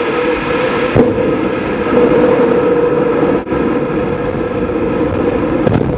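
Ariane 5's Vulcain 2 liquid-fuelled main engine firing on the pad with a loud, steady noise, with a brief crack about a second in. This is the seven-second run after main-stage ignition, while the engine's performance is checked before the solid boosters are lit.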